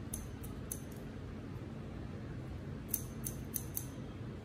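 Barber's hair-cutting scissors snipping hair, with crisp short snips: a few in the first second, then a quick run of about five about three seconds in.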